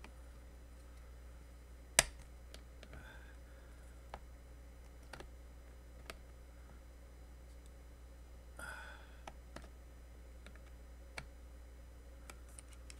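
Scattered small clicks and ticks of a pointed metal tool against the metal end cap of a small brushed motor being pried apart, with one sharp click about two seconds in and a brief rustle past the middle. A low steady hum sits underneath.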